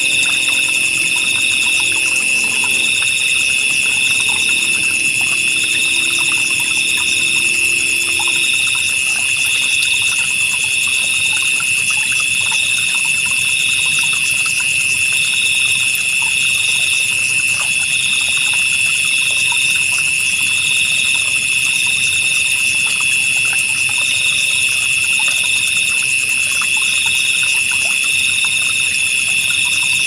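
Night insect chorus: crickets trilling in steady, unbroken high tones, with another insect's call pulsing in short repeated bursts above them. A faint trickle of water runs underneath.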